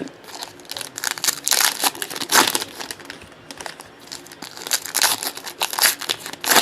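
Panini Prizm trading-card pack wrappers crinkling and rustling as packs are handled and opened, in a string of short uneven scrapes and crackles.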